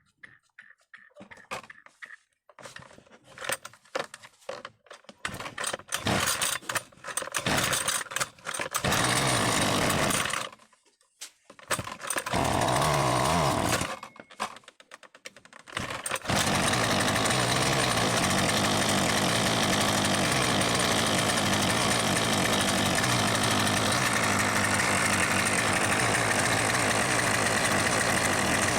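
Husqvarna 128R brushcutter's small two-stroke engine being pull-started: several short uneven bursts, then it catches and dies twice before running steadily from about halfway on. The stalling and struggle to start are the sign of a defective carburettor, which the repairer says must be replaced.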